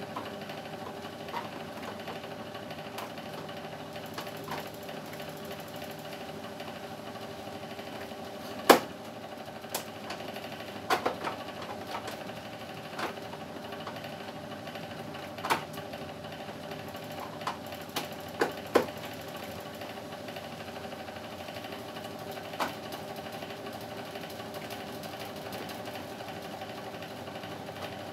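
A steady electric motor hum, with scattered sharp clicks and knocks from hands and a screwdriver on the plastic casing of a split air conditioner's indoor unit, the loudest about nine seconds in and a quick cluster around eighteen seconds.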